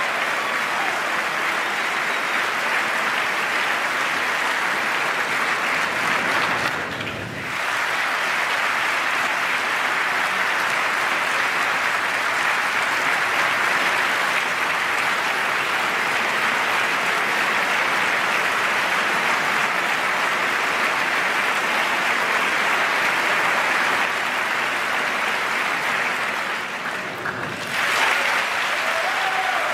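Large crowd applauding steadily. The applause dips briefly twice, once about a quarter of the way in and again near the end.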